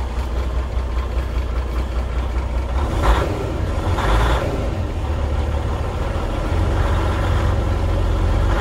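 Freightliner semi truck's diesel engine idling steadily, heard from inside the cab, with two brief rustles about three and four seconds in. The owner reports the truck shaking at this idle and thinks injectors could be the cause.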